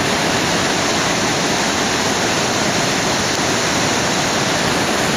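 Rushing mountain stream: a steady, even rush of water.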